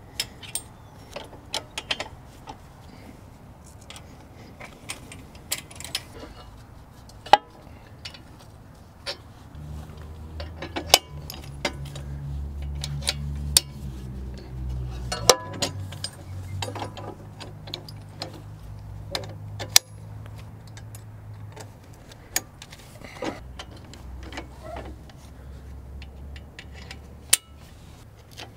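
Scattered metal clinks and clicks of steel pins, clevises and hitch arms being handled and fitted by hand on a John Deere 1025R's three-point hitch. A low hum sits underneath from about a third of the way in to about three-quarters of the way through.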